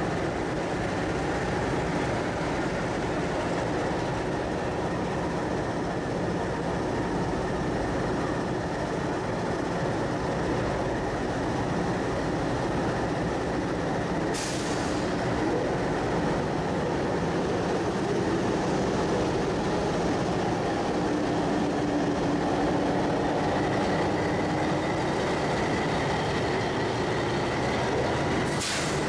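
Diesel locomotives idling steadily while standing at the platform, a constant engine rumble with a faint steady whine. A short, sharp hissing or clicking noise comes about halfway through, and another one or two come near the end.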